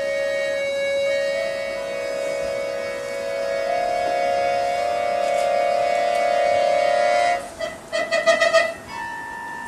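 Piano accordion playing long, steady held notes whose melody climbs in slow steps. About seven and a half seconds in comes a quick flurry of rapidly repeated notes, then a new, higher held note.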